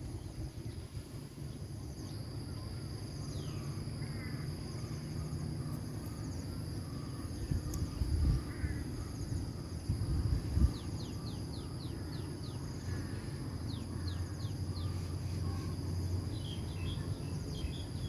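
Rural outdoor ambience: insects giving a steady high drone, with birds chirping in quick short series around the middle and near the end. Underneath is a low rumble of wind and handling noise, with a few dull knocks.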